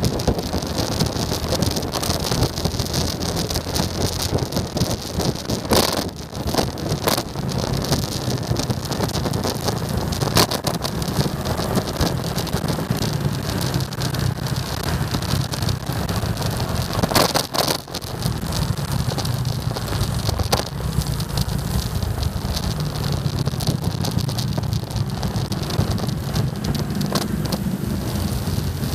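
Motorcycle riding in traffic: a steady low engine hum under heavy wind rushing over the microphone, with a few sharp gusts of buffeting.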